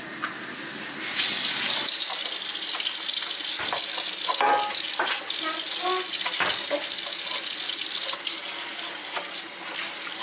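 Kitchen tap running into a stainless steel sink while dishes are rinsed by hand, with occasional knocks and clinks of dishware. The water comes on about a second in.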